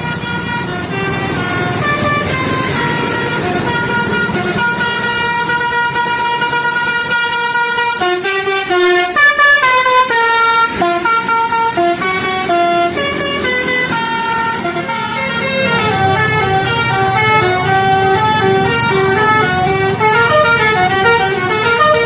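Tour buses' telolet basuri musical horns play tunes of stepped notes, one bus after another, over a low hum of engines and traffic. The loudest run of quick notes comes about eight to eleven seconds in.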